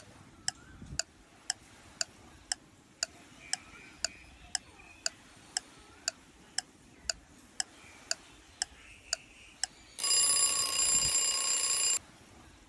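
Countdown timer sound effect ticking about twice a second, then an alarm ringing loudly for about two seconds as the time runs out.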